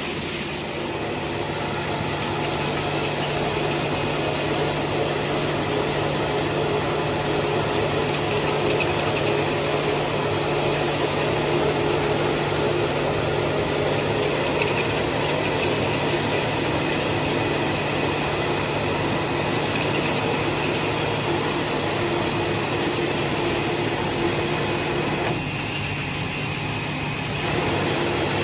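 Cap inspection machine and surrounding factory machinery running: a steady mechanical hum with a constant low drone, which thins out briefly near the end.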